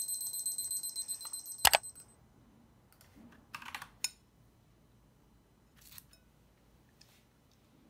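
Dretec digital study timer's alarm beeping in a rapid, high-pitched pulse, cut off with a click of its button about two seconds in. Then a few faint clinks and scrapes of a metal fork in a ceramic bowl.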